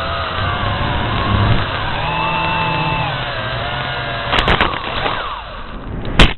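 A drone's propeller motors whine, their pitch shifting. About four and a half seconds in comes a quick cluster of sharp knocks as it strikes a branch, then one loud impact near the end, after which the motor whine dies away: the drone has crashed.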